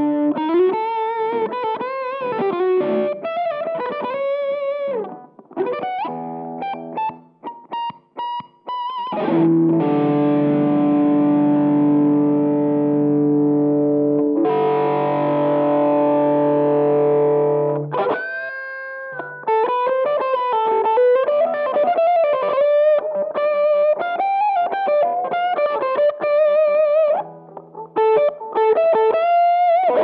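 Electric guitar through a Behringer UM100 Ultra Metal, a clone of the Boss Metal Zone, giving a heavily distorted metal tone. It plays single-note lead lines with vibrato, then a run of short choppy notes. Two long sustained chords ring from about ten seconds in to about eighteen, and lead lines with vibrato follow.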